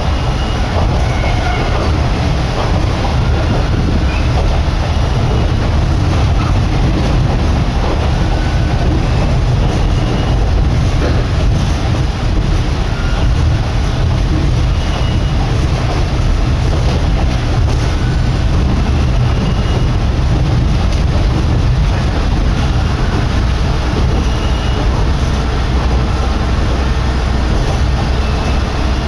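Kominato Railway diesel railcar running along the line, heard from inside the car: a steady, unbroken rumble of engine and wheels on rails.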